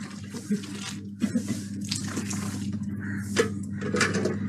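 Water sloshing and dripping at an open well, from a bucket of well water and washing in a basin, over a low steady hum.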